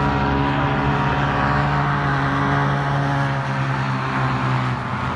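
Vehicle engines running steadily at an even pitch, with a slight dip in level shortly before the end.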